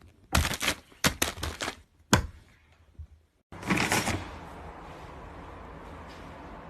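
A quick run of sharp knocks and clatters, then after a short break a loud noisy burst that settles into a steady hiss.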